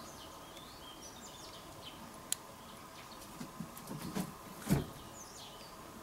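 White wagtails calling: short, falling, high chirps, a run of them near the start and a few more near the end. The uploader finds these calls different from the ones usually heard and wonders whether they are courtship. A few soft knocks and one louder thump come a little before the end.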